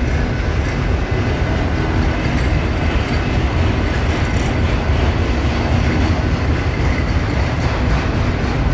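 Freight train of enclosed auto-rack cars rolling past close by: a steady, loud rumble of steel wheels on the rails.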